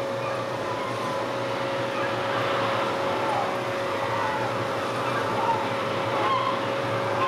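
Boat engine running steadily, a constant hum, with birds calling over the water every second or two.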